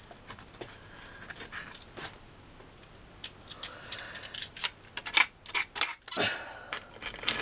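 Craft knife cutting and trimming pieces off polystyrene foam: a run of short scratchy cuts and clicks, which come more often and louder in the second half.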